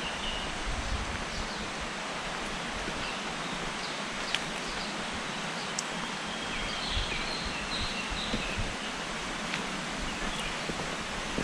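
Forest ambience: a steady rushing hiss of wind in foliage or running water, with short bird chirps scattered through it and a brief run of chirping about seven to nine seconds in.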